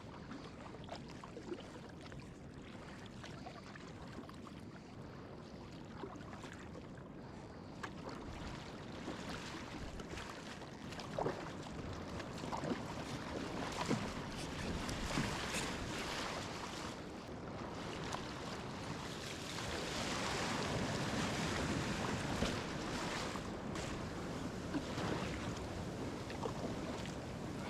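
Sea water and surf washing around a fishing kayak as it is paddled in toward the beach, with occasional sharper splashes; the water noise grows louder about halfway through.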